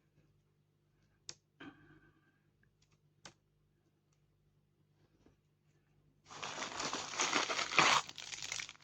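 A few sharp clicks and a brief rustle of handling, then about six seconds in a loud, sustained crinkling of plastic packaging being handled.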